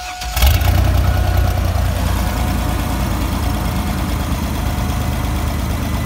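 Chevy Astro van's 4.3-litre Vortec V6 cranking briefly, catching about half a second in and settling into a steady idle. It now runs after a new crankshaft position sensor cured its crank-no-start, no-spark fault. A steady warning chime tone fades out as it catches.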